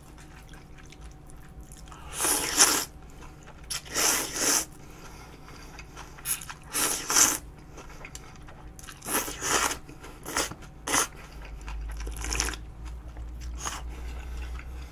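Cold buckwheat noodles (naengmomil) being slurped up from a bowl in a series of slurps a second or two apart, the longer pulls in the first half and shorter ones later.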